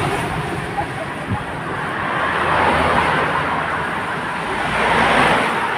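Road traffic passing: a steady noise that swells twice, with a low rumble under the middle of it.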